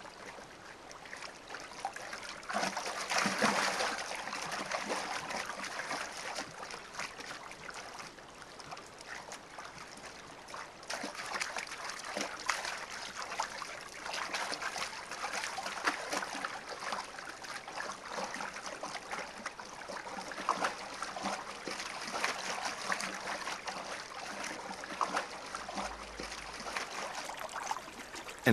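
River water splashing and trickling as a wildebeest wades and swims through it, with many short splashes and a louder burst of splashing about three seconds in.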